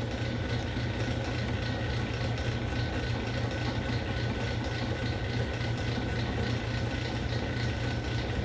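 Small lathe running steadily with a low motor hum while a harmonica slide button is turned on it.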